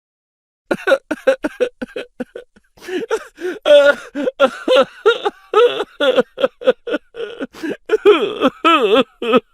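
A high-pitched voice laughing in quick repeated bursts, starting about a second in, with the pitch wavering up and down near the end.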